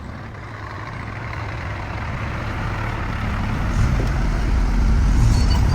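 Bulldozer's diesel engine running, a low rumble that grows steadily louder.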